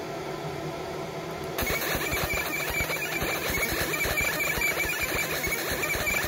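Fiber laser engraving a metal cocking handle: a steady fan hum, then about a second and a half in the laser starts firing on the metal with a fast, dense crackling buzz and a steady high whine.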